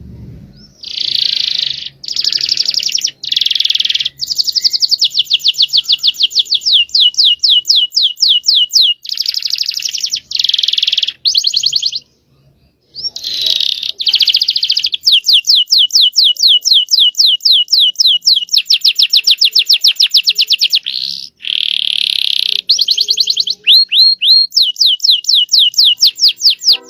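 Domestic canary singing in long phrases of fast rolling trills and rapid repeated chirps, with a short pause a little before halfway.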